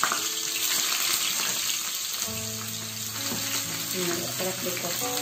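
Sliced shallots frying in hot coconut oil in a small pan: a steady sizzling hiss.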